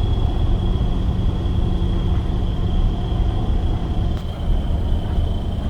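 Box truck on the move: a steady low rumble of engine and road noise, with a thin steady high whine over it.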